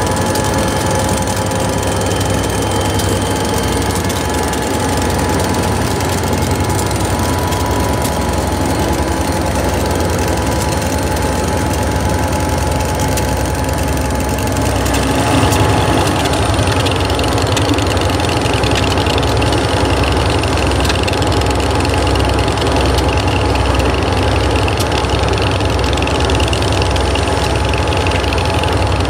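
EMD diesel freight locomotive engines running as a grain train moves past, its hopper cars rolling by. About halfway through the engine sound gets a little louder and steadier, like locomotives idling close by.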